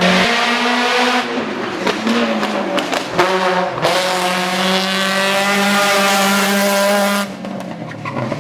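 Hill-climb race car engine at full throttle, its pitch climbing and dropping back at each gear change, then holding a long pull before the driver lifts off near the end.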